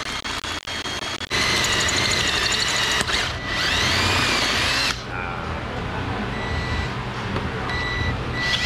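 Power drill boring out a seized wheel stud through an over-torqued lug nut, the bit cutting into the stud's threads. It starts and stops in the first second, then runs hard and steady with high squeals from the bit that rise and fall, and eases off about five seconds in.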